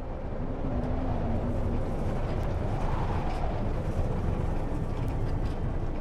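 Storm sound effect: a steady, deep rumbling roar that fades in and holds without a break.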